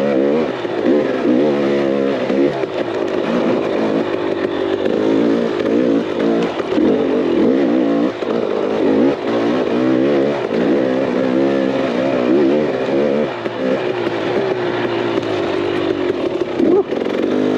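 KTM 300 XC two-stroke single-cylinder dirt bike engine on the trail, its revs rising and falling every second or two as the throttle is worked on and off.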